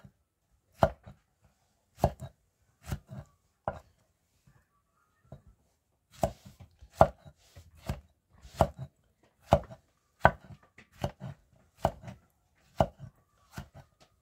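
Knife chopping vegetables in slow single strokes, each one a sharp knock, about one a second, with a pause of about two seconds partway through.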